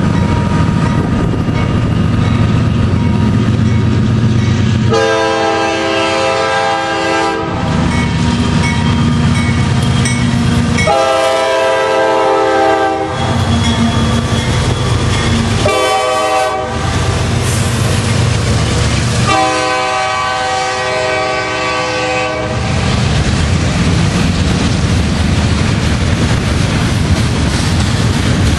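Nathan K5LA five-chime air horn on CSX locomotive 130 sounding the grade-crossing signal, long, long, short, long, over the steady rumble of the diesel locomotive. After the last blast the freight cars roll past with wheel clatter on the rails.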